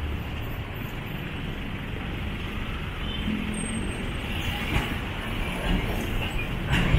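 Road traffic passing close by: jeepney, car and bus engines running, with tyre noise as a steady rumble that grows a little louder near the end.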